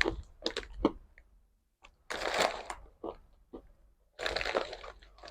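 Biting and chewing a crisp, chip-like fried snack close to the microphone: a few small cracks, then two louder stretches of crunching about two seconds in and again near the end.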